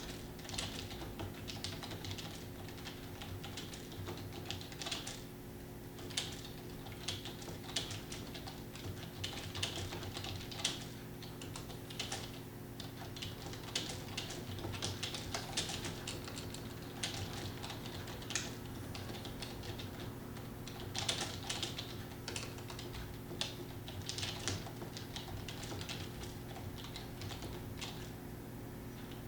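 Fast, continuous typing on a computer keyboard, keys clicking in quick uneven runs with short pauses, over a steady low electrical hum.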